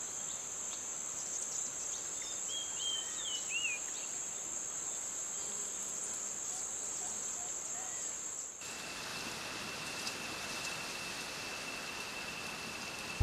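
Tropical forest insects droning steadily at a high pitch, with a few short bird chirps about three seconds in. Near the end the drone cuts off suddenly and gives way to a different, lower-pitched steady insect tone over a hiss.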